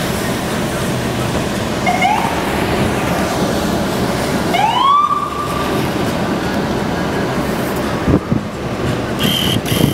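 Emergency vehicle siren whooping up twice, a short rising whoop about two seconds in and a longer one near the middle that rises and holds, over a steady rushing noise. A few knocks near the end.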